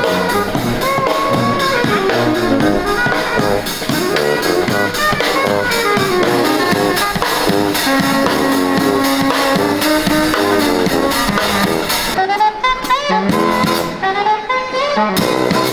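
Street band of two saxophones, a sousaphone and a drum kit playing jazz.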